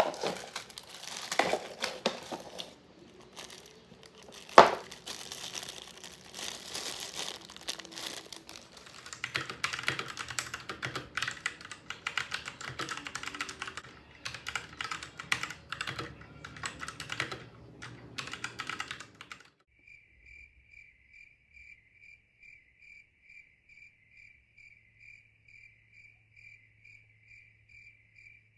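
Typing on a Royal Kludge RK68 mechanical keyboard with brown switches: a dense run of key clicks with one loud knock about four and a half seconds in. About two-thirds of the way in the typing stops and a steady series of short high beeps follows, about two a second.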